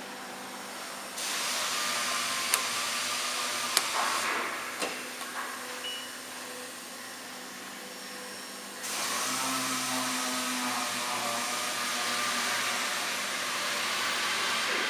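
JCUT 1330 CNC wood router's machinery running with a steady rushing hiss. It steps up about a second in, drops back about four seconds in and comes up again near nine seconds, with a few sharp clicks.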